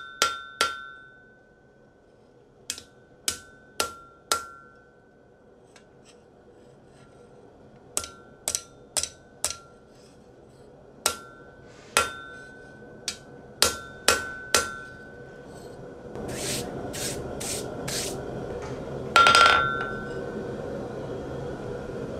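Hammer strikes on a large cast steel Firminy anvil, coming in groups of a few blows with pauses between, each blow ringing with a clear high tone. About two-thirds of the way through a steady rushing noise comes in under the blows, and the loudest strike, near the end, rings the longest.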